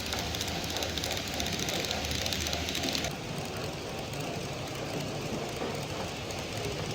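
Model trains running on exhibition layouts amid steady hall noise. The higher hiss drops off abruptly about three seconds in.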